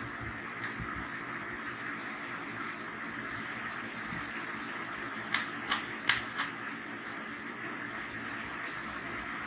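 Steady room hiss with a few light clicks in quick succession just past halfway: small metal tapping and clicking from a screwdriver undoing a small screw on a TV main board.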